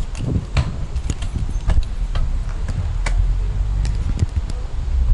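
Walking sounds picked up by a jostled camera: short clicks and knocks about every half second, over a steady low rumble of wind on the microphone.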